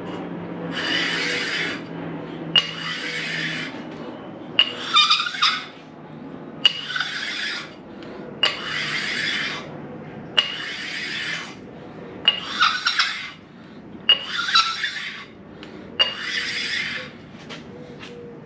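Coarse sharpening stone rubbed by hand across the machined sealing surface of a 6.0 LS engine, a dry gritty scrape in nine even strokes about two seconds apart, each lasting about a second. The stone is lapping the surface to an even finish rather than taking off material.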